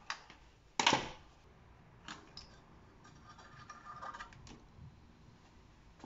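A sharp metallic clack about a second in, then fainter clicks and clinks as a Keihin 26/30 DC carburetor is lifted off its intake manifold and handled.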